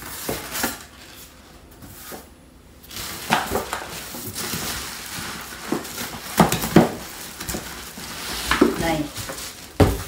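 Cardboard box, foam packing and a plastic bag being handled as an air fryer is unpacked and lifted out: scattered rustling, crinkling and short knocks, the loudest bumps a few seconds in and near the end.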